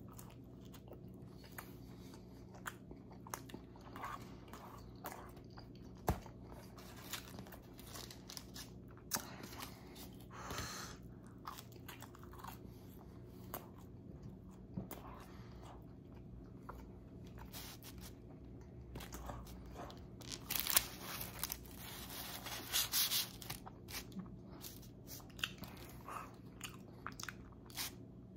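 A person chewing and biting pizza crust: repeated crisp crunches and mouth sounds, louder and denser about twenty seconds in.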